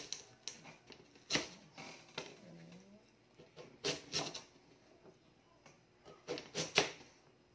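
Kitchen knife slicing through a raw peeled sweet potato and knocking on a cutting board: about eight irregular chops, with three in quick succession near the end.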